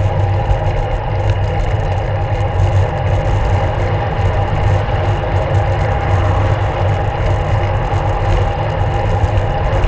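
Steady rumble of wind and road noise on the camera's microphone while riding a road bike along a street, with car traffic close by.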